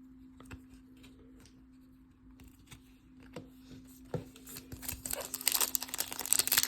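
A few light card clicks, then a foil trading-card pack wrapper being torn open and crinkled from about halfway in, growing louder toward the end.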